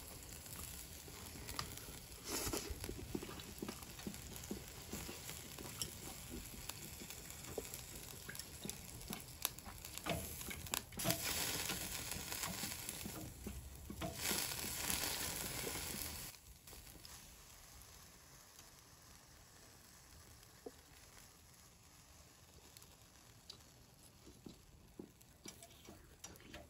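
Food sizzling and crackling over charcoal on a small charcoal stove, with a spell of louder sizzling, before it drops to a quieter crackle about two-thirds of the way through.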